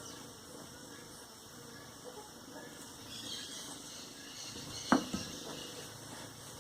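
Faint, steady high-pitched chirring of insects in the background, with one sharp knock about five seconds in.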